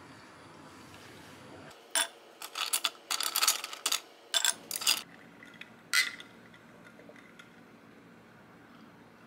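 Drinking glasses clinking and knocking against each other and on a wooden table: a quick run of sharp clinks and taps from about two seconds in, ending with one ringing clink about six seconds in.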